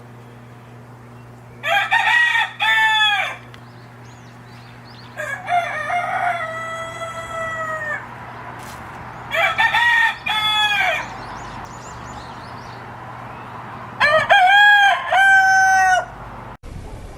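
A rooster crowing four times, a few seconds apart, each crow a run of several notes ending on a held one. A steady low hum runs underneath.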